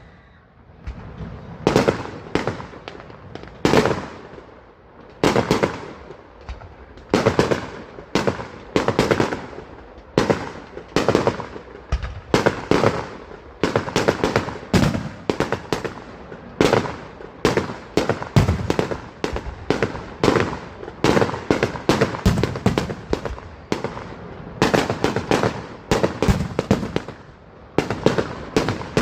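Fireworks display: a rapid string of bangs and crackling volleys from aerial shells bursting, one after another every second or so, with short echoing tails.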